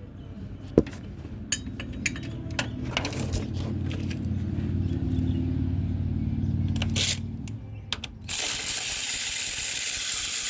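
Socket ratchet clicking and rattling as a loosened bolt on a truck's starter motor is turned out. About eight seconds in, a loud, steady hiss begins, and it cuts off abruptly.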